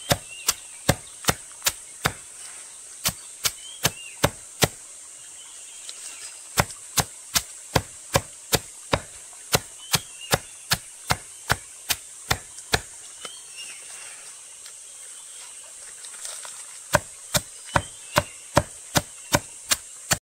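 Steady chopping with a blade, sharp even strikes about two to three a second, in runs broken by pauses, the longest about two-thirds of the way through.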